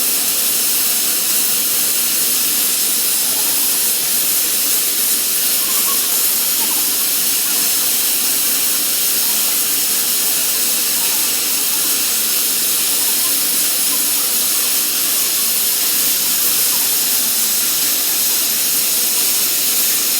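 Plasma cutting torch on a CNC pipe profile cutting machine, hissing steadily and evenly as it cuts steel pipe.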